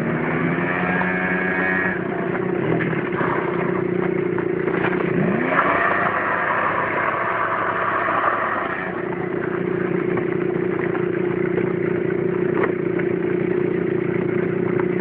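Two 50cc scooters, a Honda Dio SR and a Moto Roma Gogo 50, riding together with a steady engine drone. The pitch rises briefly as the throttle opens near the start and again about five seconds in.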